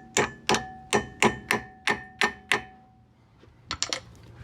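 Hammer tapping a brake pad retaining pin into a Brembo six-piston brake caliper: about eight sharp metallic strikes at roughly three a second, each leaving a ringing tone, stopping a little past halfway. A few light metal clinks follow near the end.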